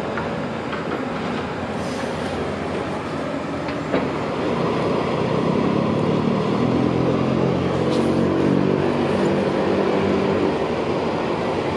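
Diesel locomotive running on the line, its engine growing louder from about four seconds in, with a sharp click just before.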